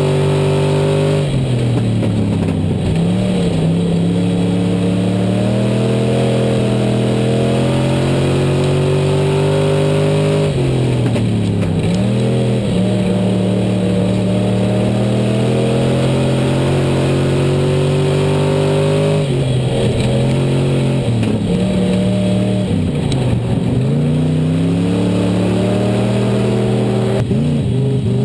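IMCA Southern SportMod's V8 engine at racing speed, heard from on board the car. The engine note drops each time the driver lifts for a corner, then climbs steadily again under throttle down the straight, repeating about every nine seconds.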